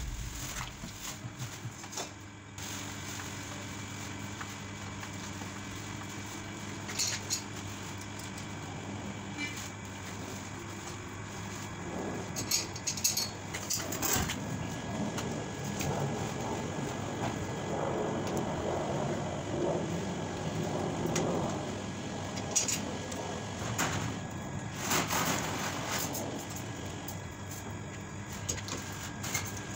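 Scattered metallic knocks and clatter from a steel chair trolley being lifted and turned by hand, over a steady low hum.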